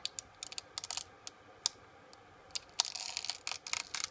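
Plastic clicking and crackling as a freshly 3D-printed part and its brim are scraped and pried off the printer's build plate. Scattered single clicks give way to a dense run of crackling about two and a half seconds in.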